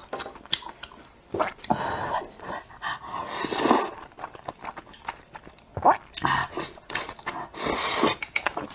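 Slurping and chewing thick, saucy rice noodles close to a clip-on microphone. A long, loud slurp comes a little past three seconds in, with wet mouth smacks and clicks between, and a huffing breath out near the end.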